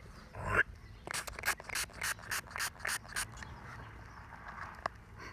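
A series of quick rubbing strokes, about four a second for around two seconds, as dirt is rubbed off a freshly dug coin to bring out its mint mark. There is a single short click near the end.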